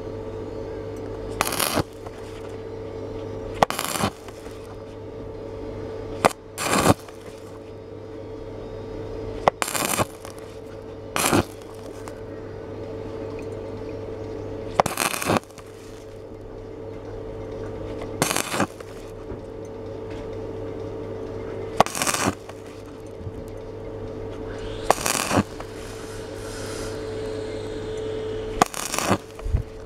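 Stick (arc) welding with a coated electrode: about ten short crackling bursts of arc, struck one after another every two to four seconds over a steady hum. The welder is building up weld over a large hole in thin 2.2 mm steel.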